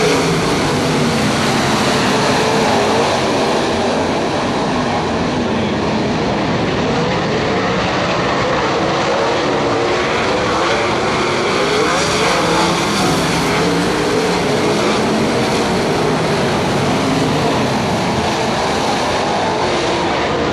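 A pack of sprint cars' V8 engines racing on a dirt oval, a steady loud drone whose pitch keeps rising and falling as the cars power down the straights and back off into the turns.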